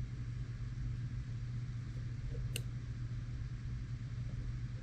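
Steady low background hum, with one sharp click about two and a half seconds in as a small airsoft pistol part is pushed into place.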